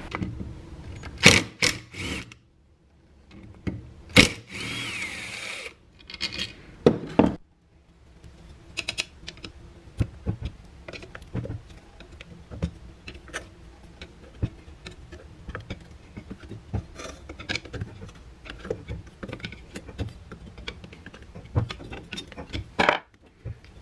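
A cordless impact driver runs for about a second, backing a screw out of the rear of an alternator case. Then come a long run of small metallic clicks, knocks and scrapes as the alternator's aluminium case is pried apart and handled with a screwdriver.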